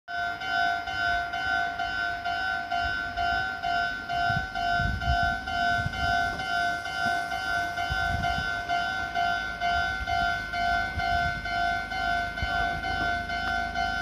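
Japanese railway level-crossing warning bell ringing: a repeated electronic clang at about two strokes a second, the signal that a train is approaching and the barriers are coming down.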